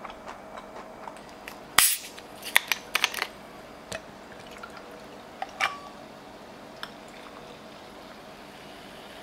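A plastic cola bottle is twisted open with a short, loud hiss of escaping gas about two seconds in, followed by a few sharp clicks and a ringing clink of glass and ice. The cola is then poured over ice into a glass.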